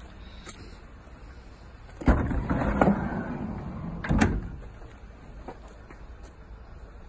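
Sliding side door of a Ford Transit Custom van: a clunk as it unlatches about two seconds in, then a rumbling slide along its runner for about a second, and a sharp thud about two seconds later as the door reaches its stop.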